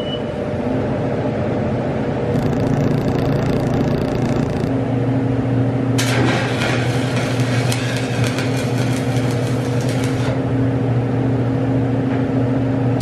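Arc welding on a homemade steel tool: the welding machine hums steadily throughout, and the arc crackles in two stretches, a short one of about two seconds early on and a longer one of about four seconds through the middle.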